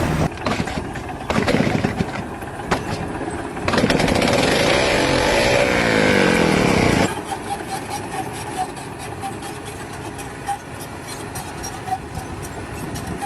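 An engine running, louder for a few seconds in the middle with its pitch sliding up and down, then dropping back to a quieter running sound with scattered clicks.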